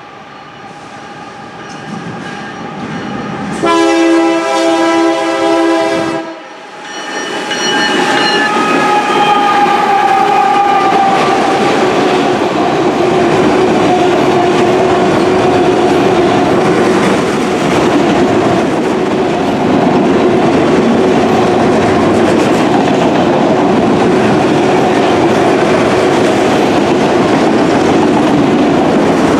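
Norfolk Southern GE ES40DC diesel locomotive approaching and growing louder, then sounding one loud horn blast of about two and a half seconds, roughly four seconds in. As the engine passes, a tone falls slowly in pitch, and then a long train of autorack cars rolls by in a steady clatter of wheels on rail.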